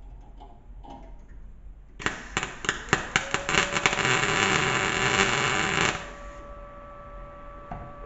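MIG welder laying a short weld: a crackling, sputtering arc for about four seconds, starting about two seconds in.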